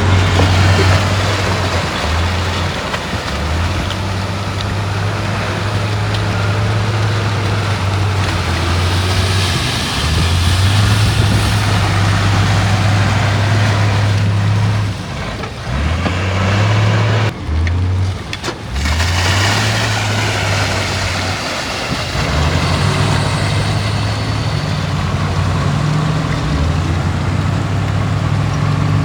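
Heavy diesel engine of earthmoving machinery working under load. Its low note drops and climbs back every few seconds, with a short break about 17 seconds in.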